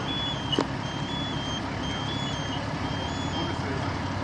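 Electronic vehicle warning beeper sounding in a repeating pattern that steps between two close high pitches, over the steady low rumble of idling vehicle engines. One sharp knock comes about half a second in.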